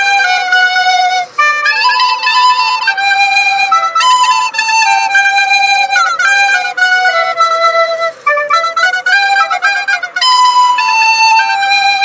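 Background music: a single melody of stepping notes on a flute-like wind instrument, some notes wavering.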